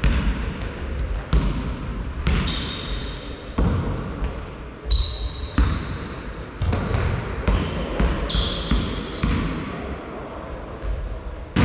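Basketball bouncing on a sports-hall floor during play, the bounces sharp and echoing in the large gym, with sneakers squeaking on the court in high thin squeals several times in the middle.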